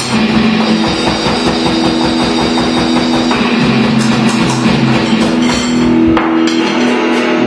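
Drum kit and guitar playing together: rapid, busy drumming under held guitar notes.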